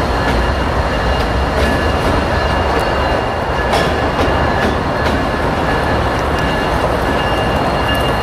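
Freight train rolling past, a steady rumble of wheels on rail with scattered clicks from the rail joints and a thin, steady high-pitched wheel squeal.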